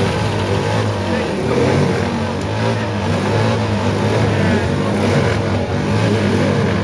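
Classic motorcycle engines running, blipped so that their pitch rises and falls over and over, above a steady low engine hum.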